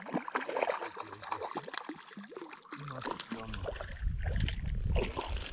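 Scattered clicks and rustling handling noise from the angler moving, with a low rumble in the second half as the wearer shifts on the bank.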